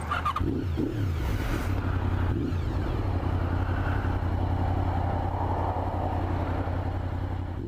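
Sports bike engine running steadily with a low hum, after a few brief changes in pitch near the start.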